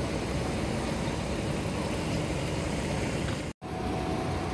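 Steady low rumble of a bus engine idling, with wind noise on the microphone; it breaks off for a split second about three and a half seconds in.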